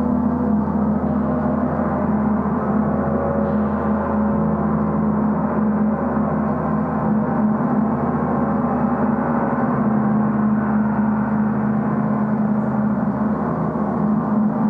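Portable gong on a stand played continuously: a sustained, even wash of many overlapping tones with a strong low drone, with no separate strikes standing out.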